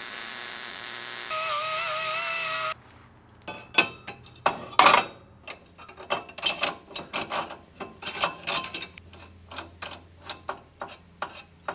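A loud, steady hissing noise that cuts off sharply after about three seconds, followed by a long run of sharp metallic clicks and clanks from tools and metal parts being handled.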